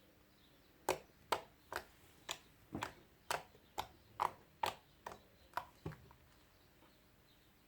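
Homemade shaving-foam slime squeezed and poked by hand, giving about a dozen sharp clicks and pops, roughly two a second, that stop about six seconds in.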